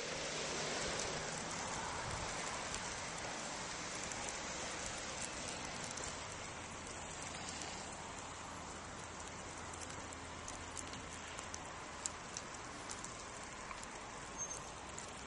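Steady outdoor hiss of a heavy snowstorm, with a few faint ticks in the second half.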